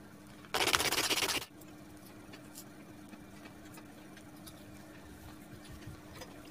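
A harsh scratchy rasp lasting about a second, starting about half a second in, from small pieces of cardboard being handled and worked by hand. It is followed by faint light taps and ticks over a low steady hum.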